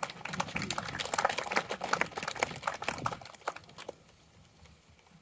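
Applause from a small crowd, many hands clapping unevenly for about three seconds, then dying away about four seconds in.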